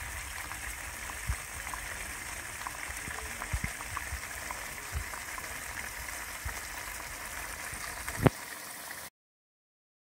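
Chicken and potato colombo curry simmering in a pan, the sauce bubbling with a steady hiss and scattered small pops. One louder pop comes near the end, and then the sound cuts off suddenly.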